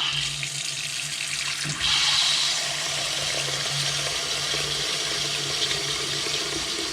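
Water running from a two-handle Delta faucet into the sink, a steady rush that gets louder about two seconds in. The faucet has just been turned back on after its seats and springs were replaced.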